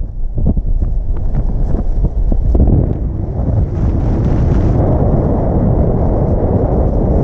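Strong gusting wind of over 40 mph battering MSR backpacking tents and blowing across the microphone. Sharp snaps of flapping tent fabric come through in the first few seconds, then a steadier rush.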